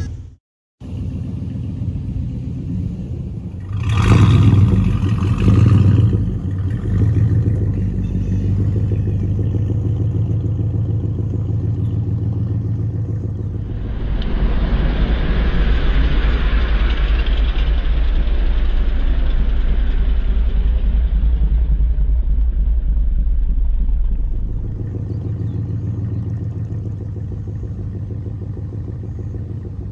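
Pickup truck engine running as the truck is driven, revving up loudly for a couple of seconds near the start. It turns harsher and louder for about ten seconds in the middle, then settles to a steady, quieter run.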